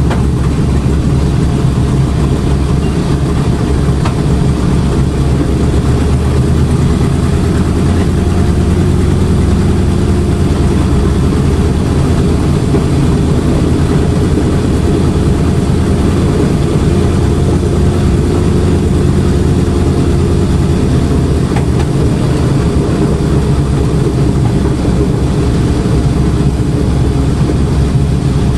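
The twin Wright R-2600 radial engines of a B-25 Mitchell bomber running steadily, heard from inside the cockpit as a loud, deep, unbroken drone.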